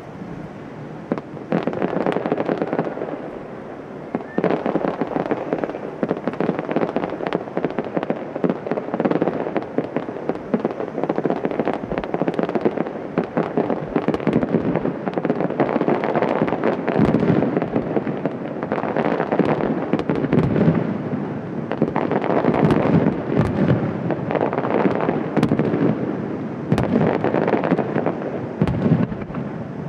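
Starmine fireworks barrage heard from about 650 m away: a dense, continuous stream of shell bursts, booms and crackle with rolling echoes. It swells in waves with brief lulls.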